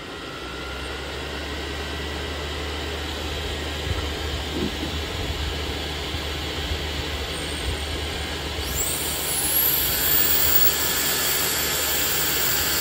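Supercharger blower fan forcing air into a diesel heater's inlet manifold to flush out and decoke the burn chamber: a steady rushing of air that builds over the first couple of seconds. About nine seconds in the fan speeds up further, a whine rising steeply in pitch as the rush grows louder.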